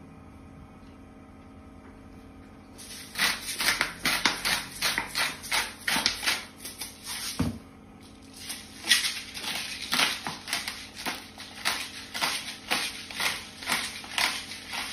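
Hand-twisted spice mill being ground, a rapid run of crunchy rasping clicks about three a second that starts about three seconds in, stops briefly around the middle, and starts again.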